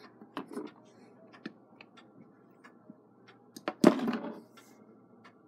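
Handling noise at a clockmaker's bench: faint scattered ticks and clicks of small brass clock parts being handled, and one sharp knock a little before four seconds in, followed by a short rustle.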